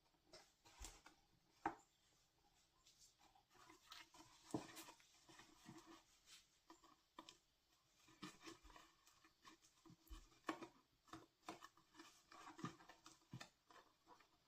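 Faint rustling, rubbing and small taps of folded cardstock being handled and pressed together as its glued flaps set, with scattered light clicks; the sharpest taps come near 2 seconds and 4.5 seconds in.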